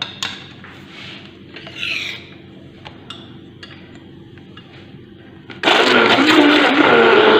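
A Moulinex hand-held stick blender is switched on about two-thirds of the way in and runs steadily as it purees peeled orange and mandarin with water in a plastic jug. Before that there are only a few light knocks of handling.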